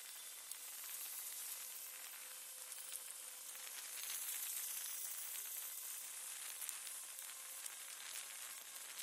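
Steady high hiss of road and wind noise heard from a moving vehicle, with a few faint ticks, swelling slightly about halfway through.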